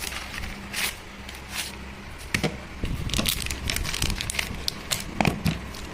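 Irregular small clicks and crackles of a Redmi smartphone being handled and worked on for a battery change, coming thicker from about two seconds in, over a low steady hum.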